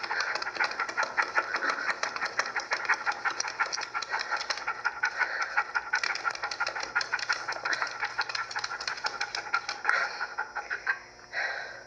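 A dog panting rapidly and rhythmically close to the microphone; the panting stops about ten seconds in.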